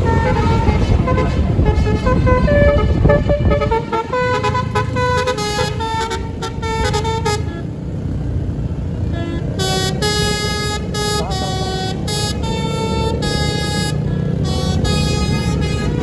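Tunggal Jaya bus's telolet basuri musical air horn playing a fast tune of stepped notes, with a brief break about halfway through. A low rumble runs under the notes for the first few seconds.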